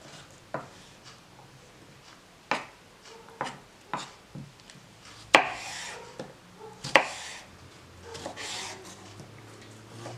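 Kitchen knife cutting a peeled cucumber on a wooden cutting board: scattered sharp taps of the blade on the board, the two loudest a little past the middle, and a few longer scraping strokes as the blade draws lengthwise through the cucumber.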